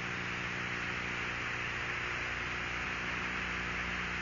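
Steady hiss with a low electrical hum underneath: the background noise of an open radio channel on the broadcast audio.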